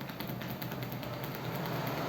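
Head massage: rapid fingertip tapping on the scalp, many light taps a second, fades out early on and gives way to a steady rustling hiss of hands working the hair, growing louder toward the end.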